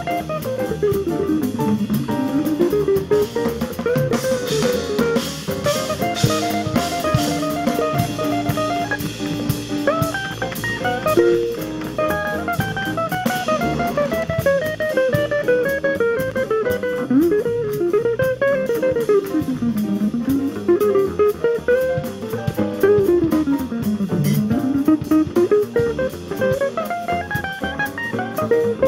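Jazz guitar solo on an archtop hollow-body electric guitar, with long runs of single notes that climb and fall, over a drum kit.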